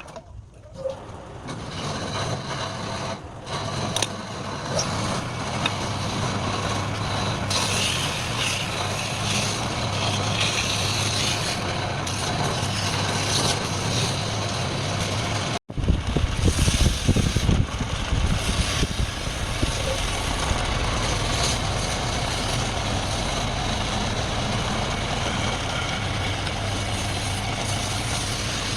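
Wood lathe running with a turning tool cutting into the spinning wood: a steady motor hum under a continuous hiss of shavings. It breaks off abruptly about halfway through and resumes just as steadily.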